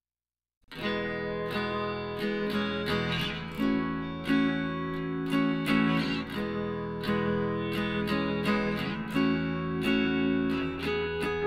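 Background music: acoustic guitar playing with evenly spaced plucked notes and strums, coming in under a second in after silence.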